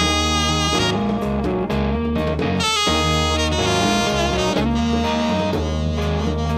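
A tenor saxophone plays a melody of held notes over a band of distorted electric guitar, bass and drums. It is a live rock and jazz jam.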